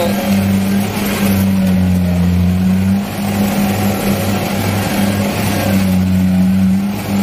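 Diesel engine of a Kubota rice combine harvester running hard as its tracks work through deep paddy mud, with a steady low drone whose pitch sags briefly twice.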